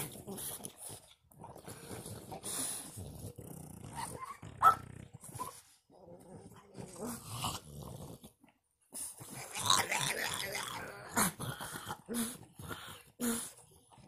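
Male French Bulldog vocalizing in frustration at a baby gate, kept from a female in heat: an irregular run of short grumbling and whining noises, with one sharp, louder high cry about four and a half seconds in.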